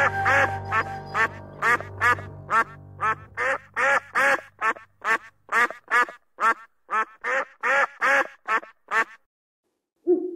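Mandarin ducks calling: a quick run of short, repeated calls, about three a second, that stops about nine seconds in. Background music fades out under the first few seconds of calls.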